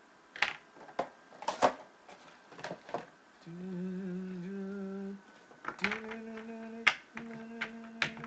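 A man humming two long, low, steady notes without words, one from about three and a half seconds in and the next from about six seconds in. Sharp clicks and snaps from handling trading cards come before and over the humming; the loudest snap is about seven seconds in.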